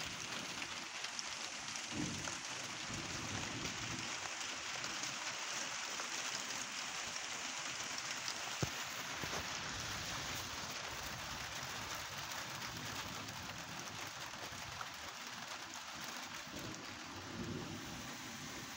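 Steady rain falling during a thunderstorm, an even hiss, with one sharp tap about halfway through.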